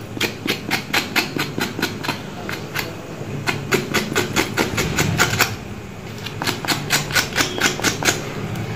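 Knife blade scraping singed skin and hair off a mutton trotter in quick, short strokes, about four a second. The strokes come in three runs, with brief pauses about three and six seconds in.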